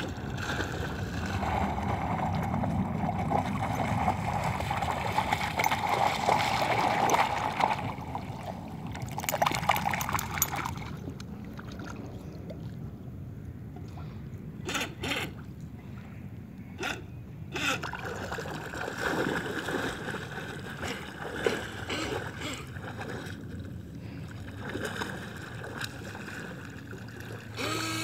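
A remote-control toy boat's small electric motor whining steadily for the first several seconds, then water splashing and gurgling around a wading, swimming dog, with a few sharp clicks midway.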